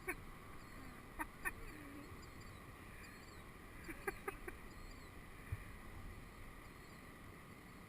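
Faint duck quacks: a pair of short quacks, then a quick group of three a few seconds later, with a single low thump shortly after.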